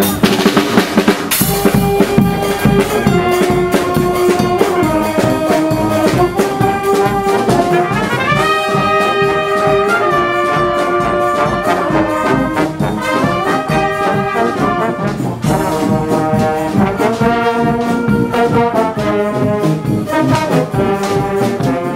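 Street marching band (fanfare) playing a tune: trumpets and trombones carry the melody over drums and cymbals keeping a steady beat, with a cymbal wash about the first second.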